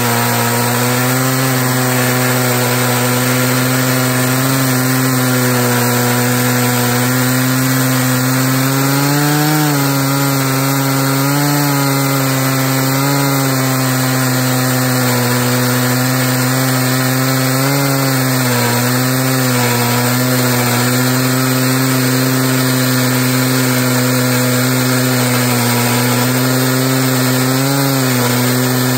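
Stihl MS880 two-stroke chainsaw in an Alaskan mill, running steadily at full throttle while ripping a beech log into slabs; its pitch wavers briefly a few times as the load changes.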